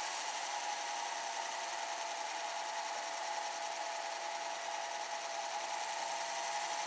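Graham electric planter row drives running with a steady motor whine. The whine sags slightly in pitch through the middle and rises again near the end as the drives slow and then speed up to match a change in ground speed.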